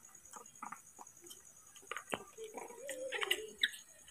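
Baby macaques eating porridge from a plastic bowl: scattered soft clicks and smacks, with a short wavering animal call about two and a half seconds in.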